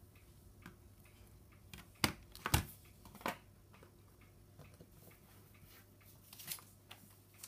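Light taps, clicks and paper rustles of hands handling a white cardboard iPhone box and its paper inserts. Two sharper knocks come about two seconds in and another shortly after, over a faint steady hum.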